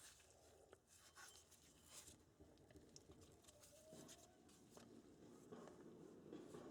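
Near silence, with faint scattered clicks and taps from small impact-wrench parts being handled on a bench. A faint hiss builds up toward the end.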